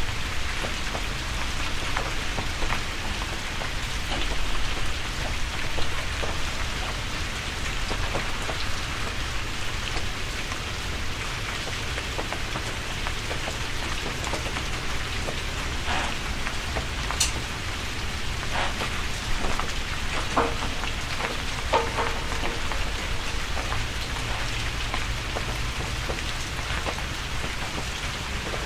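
Rain falling steadily, with scattered sharper drips and clicks. A faint held tone comes in about two-thirds of the way through.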